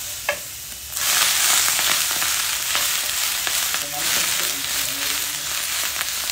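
Snow pea leaves go into a pan of hot canola oil and garlic. The sizzle jumps suddenly loud about a second in and keeps going as the leaves are stirred and tossed with a wooden spatula.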